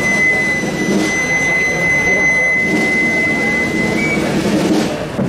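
A single high note held steady for about four seconds, stepping slightly higher just before it stops, over the murmur of a large crowd.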